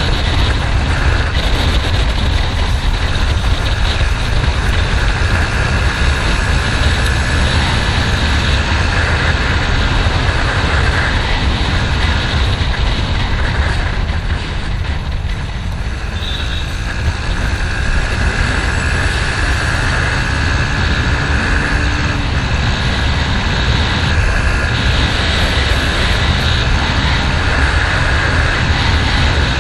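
Underbone motorcycle riding at road speed: steady rush of wind on the camera microphone with the engine running underneath. It eases slightly about halfway through, then picks back up.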